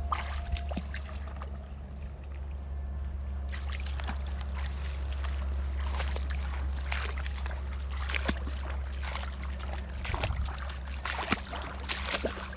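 Steps wading through shallow water and wet grass, with irregular small splashes and rustles over a steady low rumble.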